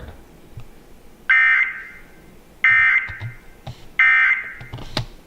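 Emergency Alert System end-of-message data signal: three short bursts of buzzing digital SAME data tones about a second and a third apart, marking the end of the alert broadcast. A sharp click follows the third burst.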